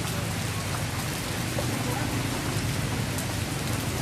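Heavy rain pouring steadily onto a wet street and nearby surfaces.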